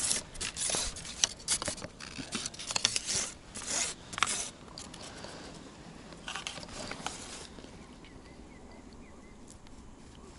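Scratchy rustling and scraping from close handling: clothing and hands working a long pole fishing rod and a small caught roach. It is busiest and loudest in the first four seconds, comes back briefly a little past halfway, then settles to a quiet background.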